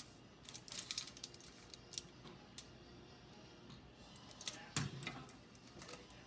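Light clicks and crinkles from a foil-lined metal baking tray being tilted and shifted by hand, then a dull clunk near the end as the tray is set back down flat on the pan beneath.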